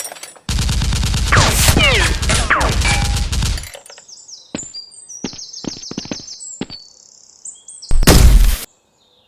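Rapid automatic gunfire: a dense burst lasting about three seconds. Then scattered single shots and clicks, and one loud blast near the end.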